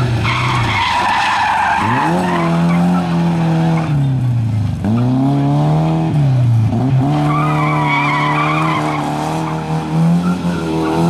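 Rally car engine under hard throttle, its pitch climbing and then dropping sharply twice near the middle as the car slides through a loose dirt corner, then holding a steady high note.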